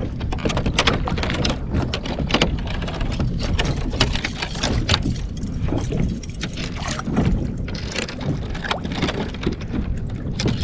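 Irregular clicks, knocks and splashes of an angler handling gear aboard a fishing kayak on the water, over a steady low rumble.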